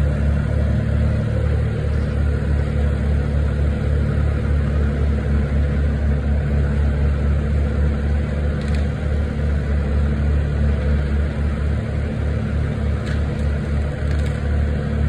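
Heavy engine idling steadily: a deep, even note that neither rises nor falls.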